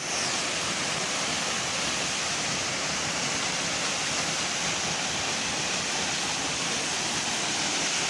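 Waterfall on a mountain stream, the falling water making a steady, even rush.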